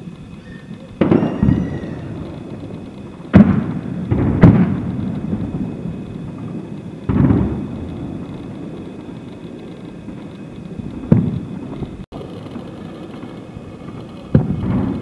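Distant explosions: about six heavy booms at irregular intervals, each trailing off in a long rolling rumble.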